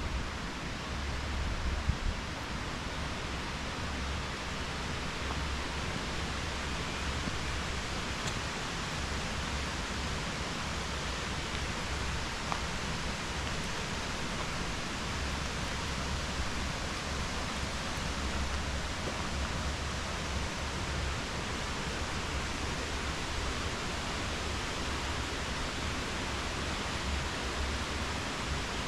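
Steady rushing of a mountain stream and waterfall in a gorge, an even unbroken roar of water.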